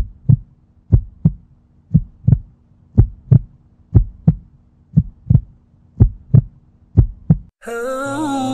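Heartbeat sound effect: a steady lub-dub, paired low thumps about once a second, over a faint low hum. Near the end it cuts off and music with a singing voice begins.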